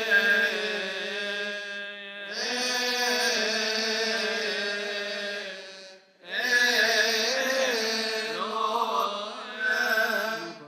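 Voices chanting a Coptic Orthodox liturgical hymn in long held, melismatic notes, with short breaks about two and six seconds in.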